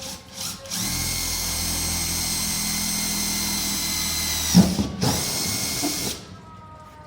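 Electric drill running in two bursts: a steady motor whine for about three and a half seconds, a brief stop, then about another second, typical of drilling holes in a plastic storage case to fit valves.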